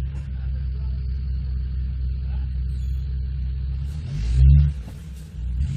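Off-road 4x4's engine running with a steady low rumble, then revving hard for about half a second around four seconds in.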